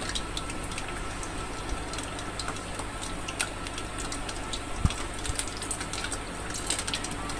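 Soya chaap frying in hot oil, a steady low sizzle, with faint clicks and one light knock about five seconds in as sticks are pulled out of fried chaap by hand.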